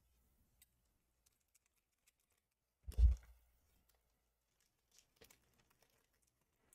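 Foil booster pack being handled and torn open: one short, loud rustle with a dull bump about three seconds in, then a few faint crinkles near the end.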